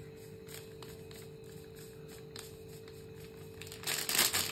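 Spoon sprinkling red chilli powder onto raw chicken in a stainless steel bowl. A few soft clicks sit over a faint steady hum, and near the end comes a louder run of scraping and tapping as the spoon works against the bowl.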